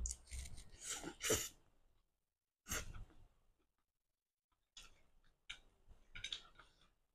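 Close-up mouth sounds of eating stir-fried flat rice noodles: a slurp as a mouthful goes in, then wet chewing and lip smacks in short bursts.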